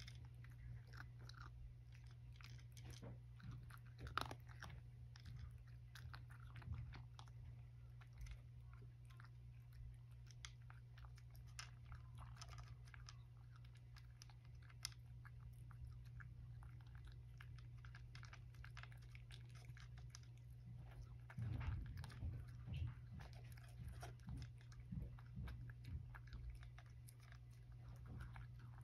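Cat eating from a dish: soft, quick clicks of chewing and crunching on dry kibble, a little louder about two-thirds of the way through, over a steady low hum.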